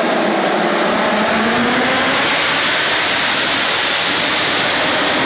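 Pack of racing motorcycles accelerating past on the straight, a dense wall of engine noise that swells about two seconds in as the bikes go by close.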